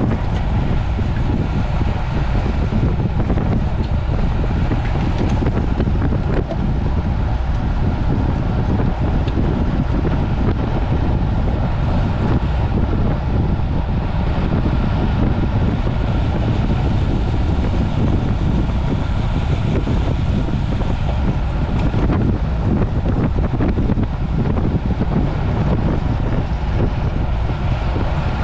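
Steady wind rush buffeting the camera's microphone on a road bicycle moving at race speed.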